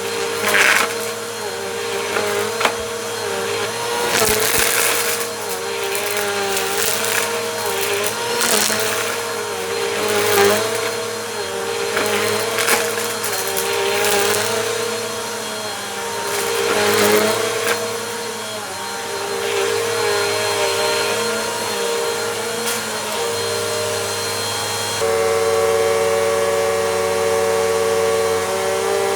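Bissell Compact vacuum cleaner running as it is pushed back and forth over a rug, with the motor's pitch wavering with each pass. Crunchy dirt rattles up the nozzle in short bursts every couple of seconds. Near the end the motor settles to a steady tone.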